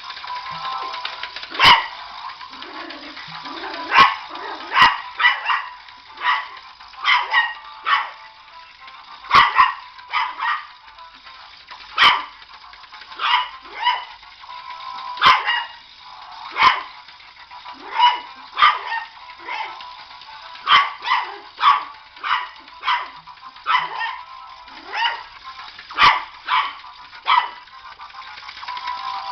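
Yorkshire terrier barking repeatedly in sharp, high yaps, about thirty barks at irregular intervals and often in quick pairs or threes, over a steady high-pitched background hum.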